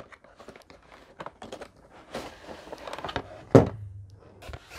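Cardboard box and clear plastic packaging tray being handled and pulled apart: scattered rustling, scraping and small clicks, with one sharper knock about three and a half seconds in as a piece is set down on the table.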